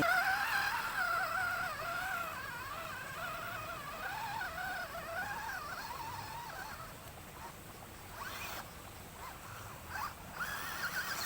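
Electric motor of an off-road RC toy car whining, its pitch wavering up and down as the throttle and load change, then fading out about two-thirds of the way through.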